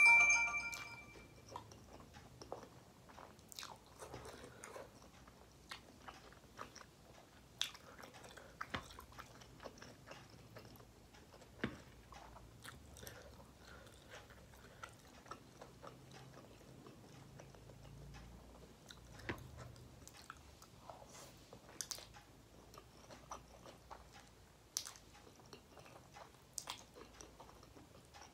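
Close-up chewing of a mouthful of instant noodles, with scattered small sharp clicks throughout.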